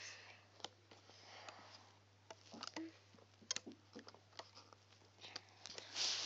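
Faint scattered clicks and taps of rubber loom bands and a plastic hook working over the plastic pegs of a rubber-band loom, over a steady low hum. A louder rustling noise comes in at the very end.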